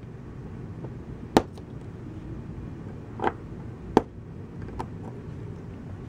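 Small sharp clicks from a pry tool popping the press-fit flex-cable connectors off a Samsung Galaxy S4's charging-port board, two clear clicks a few seconds apart among fainter ticks, over a steady low hum.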